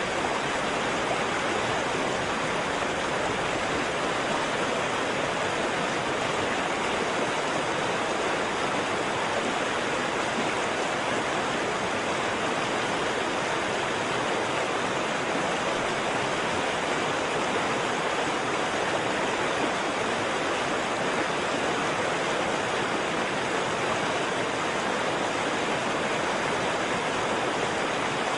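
Waterfall: water falling and rushing in a steady, even roar with no breaks.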